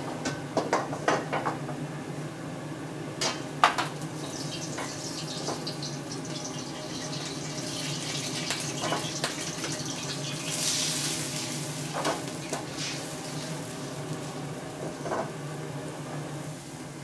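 Metal clanks of a ladle and woks on a commercial gas wok range, with water hissing and bubbling in a hot wok being heated to blanch chicken; the hiss swells near the middle, over a steady low hum.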